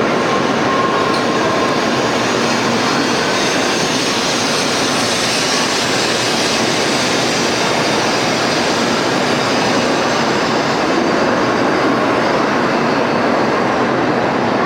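A train running, a steady, even rushing noise that neither builds nor fades.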